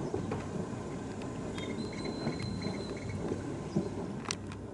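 Low outdoor background noise, with a faint thin high tone through the middle and a sharp click near the end.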